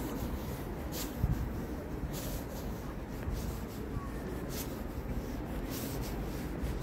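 Steady street background noise with soft brushing sounds about once a second, from the steps of someone walking on pavement while filming.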